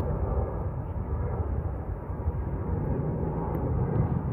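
Distant jet airliner climbing out after takeoff: a steady low rumble.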